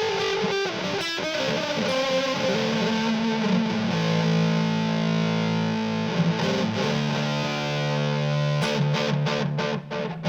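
Electric guitar played through a TC Electronic Flashback X4 delay pedal into amplifiers, with a distorted tone and echo repeats. Chords ring out through the middle, then a few quick, choppy strums come near the end.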